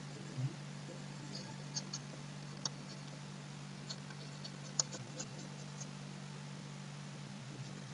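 Faint, scattered clicks of a computer mouse while handwriting is drawn on screen, about a dozen over several seconds, over a steady low electrical hum. There is a soft low bump about half a second in.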